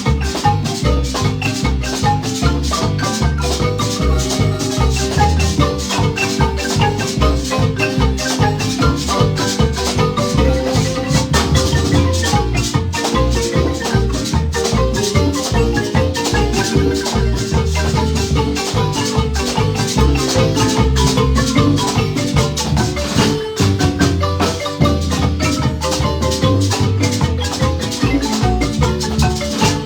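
Marimba band playing a lively tune: fast struck wooden-bar notes over a steady, pulsing bass line.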